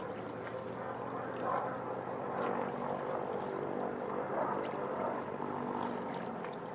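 An engine running steadily, its hum holding an even pitch.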